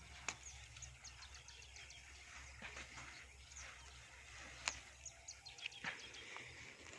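Faint rustling of chili plant foliage with a few sharp clicks as pods are picked by hand.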